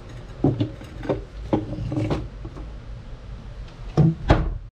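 A glass jar being set down on a wooden cupboard shelf among other bottles, with a series of knocks and rubs. Then the cupboard's wooden doors swing shut with two loud knocks close together about four seconds in.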